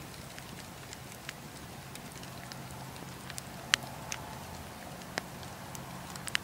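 Wood campfire burning, a steady low hiss with scattered sharp crackles and pops. The loudest pop comes a little before the middle.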